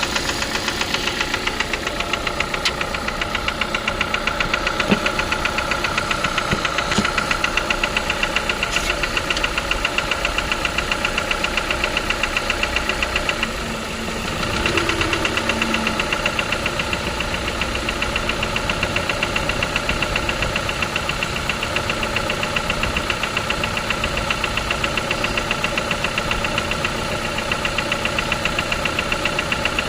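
Renault Duster's F4R 2.0-litre four-cylinder petrol engine idling with a fast, even knocking tick. The cause is unsettled: hydraulic lifters, valves, cylinder scuffing, the crankcase ventilation valve or the oil pump are the suspects.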